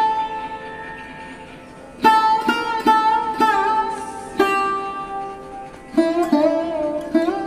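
Background instrumental music: a plucked string instrument playing a slow melody of ringing notes, some bending in pitch. It thins out after the first note and resumes about two seconds in.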